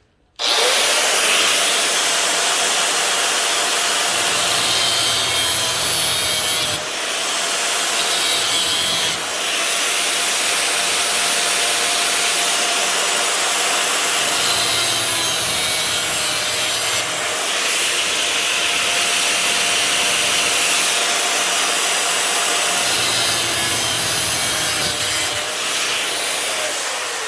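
Power saw running with a steady motor whine while cutting short pieces from old window-blind slats, with brief dips about 7 and 9 seconds in. The motor winds down near the end.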